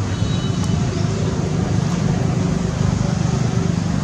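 Steady low rumble of motor-vehicle noise, with no breaks or sudden events.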